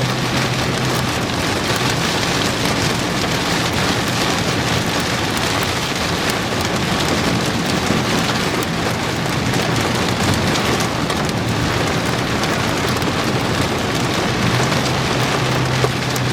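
Heavy rain drumming steadily on a vehicle's roof and windshield, heard from inside the cabin, with a low steady hum underneath at the start and again near the end.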